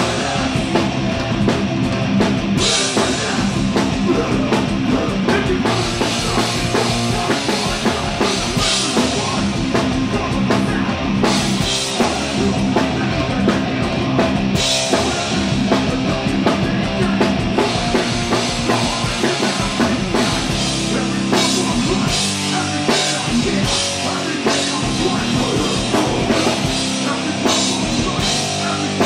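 Metallic hardcore band playing live through a festival PA: heavily distorted electric guitars, bass and drums. The playing is loud and dense, with stretches of crashing cymbals.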